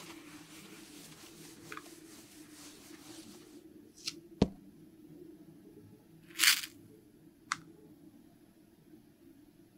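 Soft rustling of a cloth towel rubbed over a small vinyl toy figure, then a sharp knock about halfway through, a short scuff and a few lighter taps as the toy figures are handled and set down on carpet.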